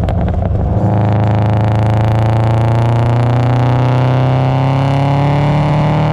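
Turbocharged Subaru Impreza WRX flat-four engine with a 3-inch exhaust, a few sharp crackles in the first second, then held steadily on the throttle with the revs climbing slowly.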